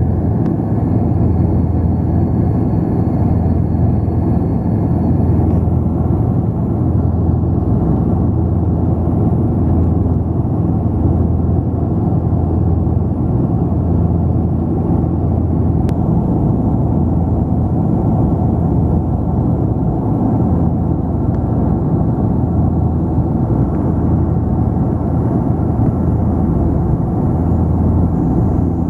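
Cabin noise of an Antonov An-24 on final approach with the landing gear down: its two Ivchenko AI-24 turboprop engines and propellers making a loud, steady, deep drone that holds even throughout.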